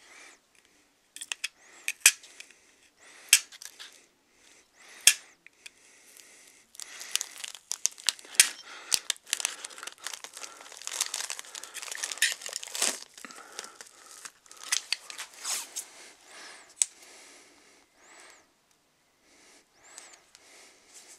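Paint-covered masking tape and newspaper being peeled and torn off the edge of an iron's soleplate: crinkling paper with many sharp snaps as the tape pulls free.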